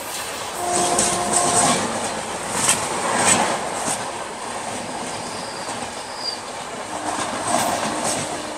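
An express train's LHB coaches rushing past on the adjacent track at close range, with sharp clacks of wheels over rail joints, loudest in the first few seconds, and a short wheel squeal about a second in.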